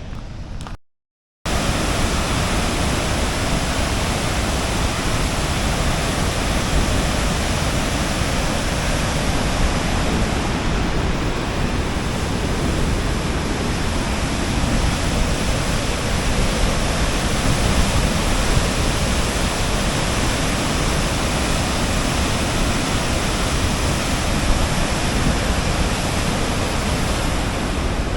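Steady, loud rushing roar of water being released from a dam and pouring down as a waterfall, starting abruptly after a brief dropout about a second in.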